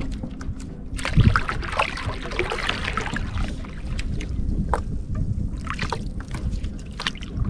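Wind rumbling on the microphone aboard a small fishing boat, with scattered knocks and clicks from gear being handled in the boat and a dull thump about a second in.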